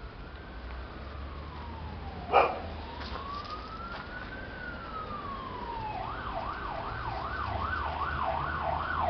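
Emergency-vehicle siren in a slow wail, rising and falling over about three seconds each way, switching about six seconds in to a fast warble of about two sweeps a second and getting louder. A dog gives a single bark about two seconds in.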